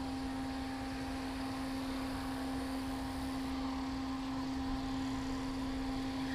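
A steady low hum, one unchanging tone, over a faint even background hiss.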